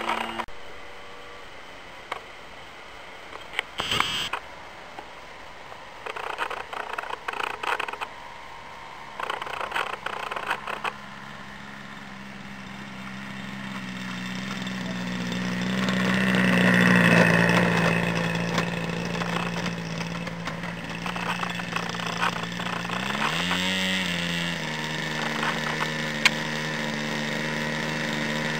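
Zenoah Titan ZG20 20 cc two-stroke petrol engine of a large RC Piper J3 Cub, idling as the model rolls along a grass strip and getting louder as it comes near. About two thirds of the way through it is revved briefly, rising in pitch to a faster idle. Before the engine comes up there is a quieter stretch broken by a few short bursts of noise.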